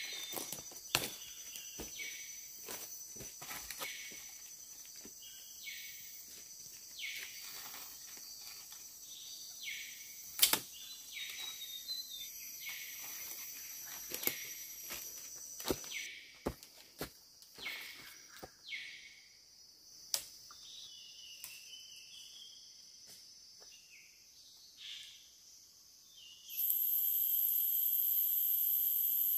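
Rainforest insects making a steady high-pitched drone, with scattered snaps, clicks and rustles of twigs and leaves as a young monkey moves through the branches. Near the end a louder insect chorus sets in abruptly.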